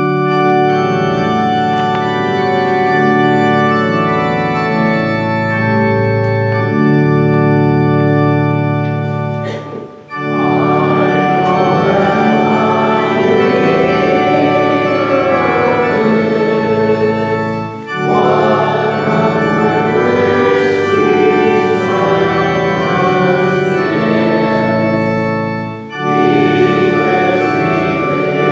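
Church organ playing held chords in phrases, with a brief pause about every eight seconds.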